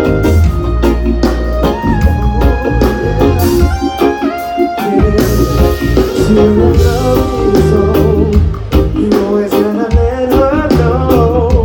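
Live band playing over an outdoor festival PA: a singing voice over bass, electric guitar and drums, played loud.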